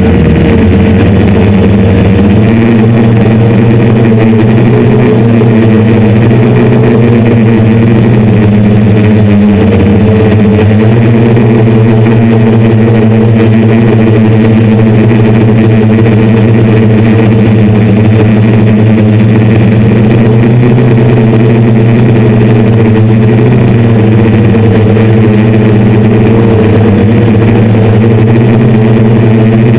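Six brushless motors and 10-inch propellers of a hand-built DJI F550-style hexacopter, heard up close from its onboard camera: a loud, steady multi-tone hum whose pitch wavers slightly as the motors keep correcting against strong wind.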